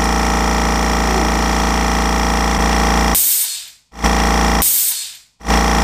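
Bostitch pancake air compressor running loud and steady with a buzzing motor hum. About three seconds in it cuts out, and short bursts of hissing noise follow with near-silent gaps between them.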